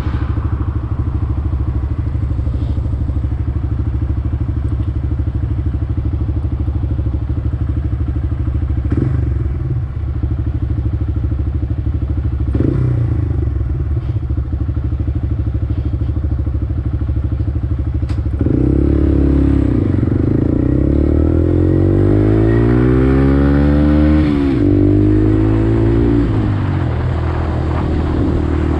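Honda Grom's 125 cc single-cylinder engine idling steadily, then about eighteen seconds in it revs up and the bike pulls away, the pitch climbing and dropping sharply once as it accelerates, before settling to a steady note near the end.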